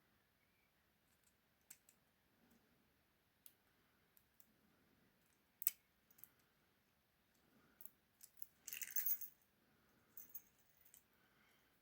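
Faint clicks and ticks of a lock pick and tensioner working inside a tiny 20 mm padlock, with one sharper click a little over five seconds in and a brief metallic rattle just before nine seconds.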